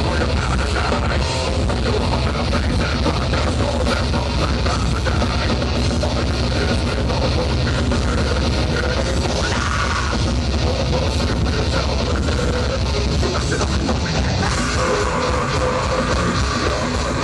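A heavy metal band playing live at full volume, electric guitars and a drum kit in one dense, steady wall of sound.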